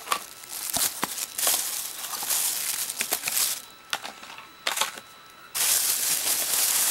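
Thin plastic shopping bag rustling and crinkling in irregular bursts as hands rummage through it, with a few sharp clicks. It goes quieter for a moment in the middle, then a long loud rustle near the end as the bag is lifted.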